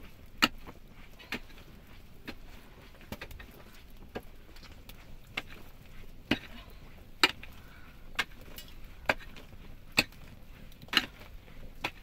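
Sharp striking blows repeated steadily about once a second, like a tool chopping or hammering, over a faint steady background.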